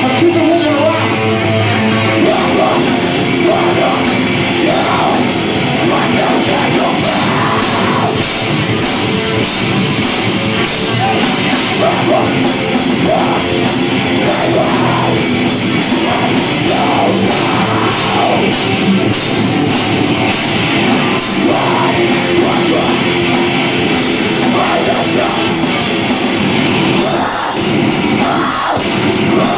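A rock band playing heavy music live and loud, with drums and cymbals, and vocals over the top. The full band kicks in about two seconds in.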